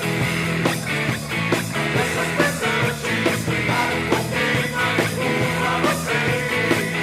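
Rock band playing with a steady drum beat of about two strikes a second under sustained guitar and bass.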